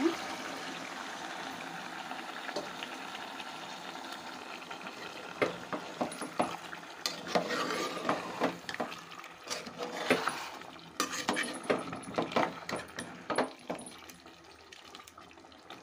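Water poured from a steel glass into a pot of chicken curry, a steady splashing pour for the first few seconds. Then a perforated metal spatula stirs the chicken, scraping and knocking against the metal pot many times before it eases off near the end.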